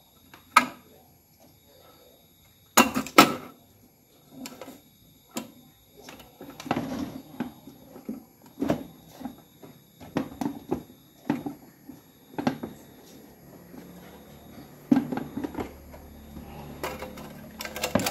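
Scattered clicks and knocks of small metal parts being handled as the spring-loaded magnetic thermostat is worked loose from the underside of a rice cooker's heating plate, with the loudest pair of knocks about three seconds in and a cluster near the end.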